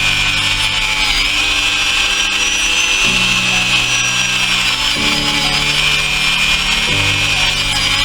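A small power tool running steadily with a high motor whine that drifts slightly in pitch, over background music with slow chord changes about every two seconds.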